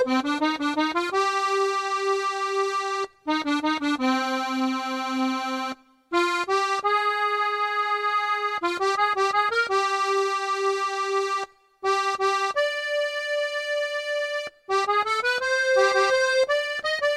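Electronic accordion sound playing the instrumental interlude melody alone, with no voice. It plays a single line of held notes and quick runs, with light bass notes underneath. The sound cuts off briefly between phrases, about four times.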